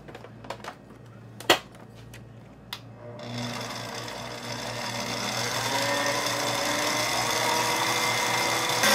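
A few light clicks and one sharp knock, then about three seconds in a stand mixer starts up and runs steadily, beating whipped cream with condensed milk in a steel bowl, its running sound growing louder toward the end.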